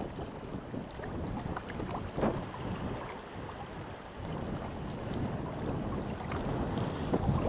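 Small wind-driven waves lapping and splashing against shoreline rocks, with wind buffeting the microphone.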